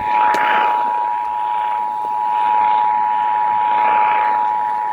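Emergency Alert System two-tone attention signal: two tones near 853 and 960 Hz sounded together as one loud, steady alarm tone, with hiss from the radio reception behind it. It is the alert tone that announces an EAS message about to follow, here the statewide Required Monthly Test.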